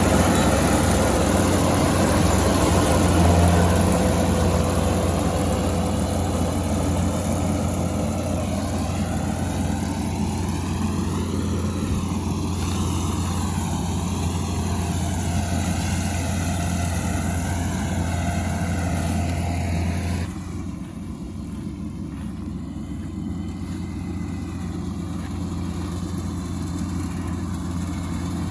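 Kubota combine harvester running steadily in a rice field, a low engine hum under a broad mechanical clatter whose tone shifts slowly as the machine works. About two-thirds through, the sound drops suddenly and turns duller.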